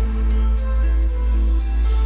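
Background music: a pop song's instrumental passage with sustained keyboard-like tones over a steady bass.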